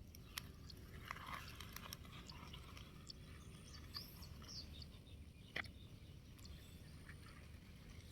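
Faint crunching and scattered small clicks of toy vehicles' wheels rolling slowly over dirt.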